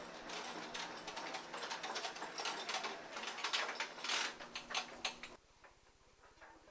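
Power wheelchair driving over a hard floor: a steady motor hum under rapid, irregular clicking and rattling, which stops abruptly about five seconds in, leaving only faint ticks.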